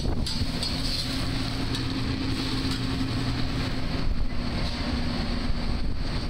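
Steady roar with a low hum in a commercial kitchen: the hot line's exhaust hood fans and equipment running.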